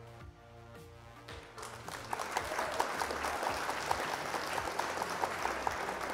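Background music, joined about a second and a half in by a burst of recorded applause that cuts off suddenly at the end.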